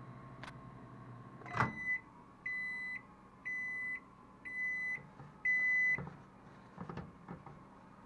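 Hamilton Beach microwave oven finishing its cooking cycle: the running hum cuts off with a click about a second and a half in, then five high beeps sound about a second apart to signal the end of cooking. A few light knocks follow near the end.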